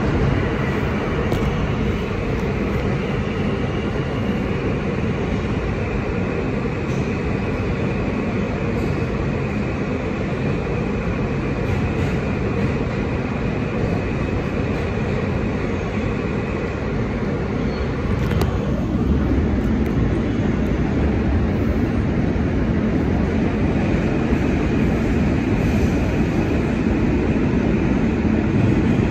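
R160 subway train running through the tunnel, heard from inside the car: a steady rumble of wheels on rail with a steady high whine over it. About 18 seconds in there is a single knock, after which the whine fades for a few seconds and the rumble grows louder.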